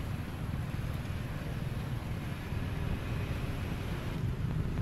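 Steady low outdoor rumble of background noise, with no distinct calls or knocks.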